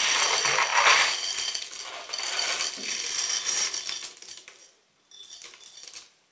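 Hot, freshly roasted sunflower seeds poured from a bowl onto a sheet of newspaper: a dense rattle of seeds hitting the paper and sliding out of the bowl, loudest in the first second and thinning out after about four and a half seconds, with a few fainter rattles near the end.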